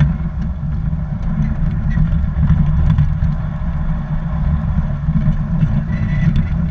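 Garden-railway model train running along its track, heard from a car in the train: a steady low rumble of wheels on the rails and the locomotive's drive.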